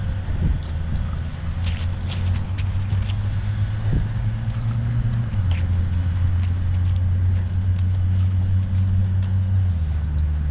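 A motor vehicle engine running steadily, its low hum dropping in pitch about five seconds in and again near the end, with light scuffs and clicks over it.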